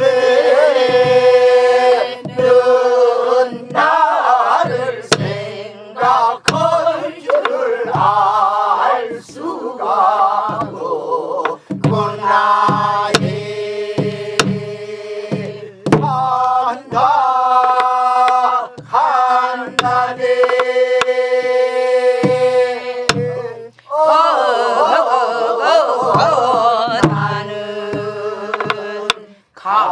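A group of men's and women's voices singing a Namdo (southwestern Korean) folk song in unison, holding long, wavering notes. A buk barrel drum struck with a stick marks the beat at uneven intervals, following the rhythm cycle.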